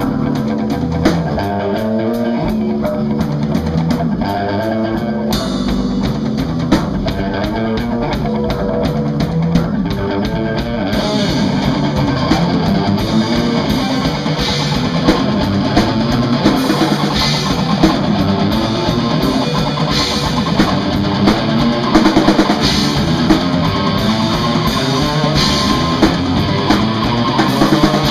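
Live rock band playing: electric guitar over a drum kit with cymbals. The sound grows fuller and a little louder about eleven seconds in.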